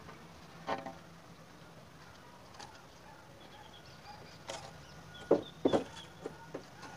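A precast concrete joist of about 100 kg being hauled by hand along the ground, giving a few scraping knocks, the loudest two about five to six seconds in.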